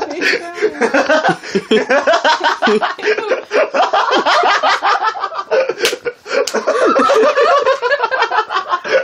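People laughing almost without pause, with a short break and a sharp click about six seconds in.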